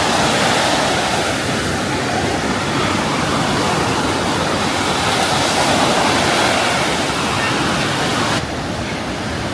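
Sea surf washing onto a beach, a loud steady rushing noise; about eight and a half seconds in the hiss suddenly loses its top end.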